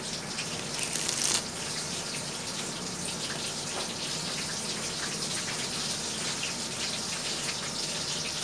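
Playing cards being handled, with light rustles and clicks, over a steady rushing background noise.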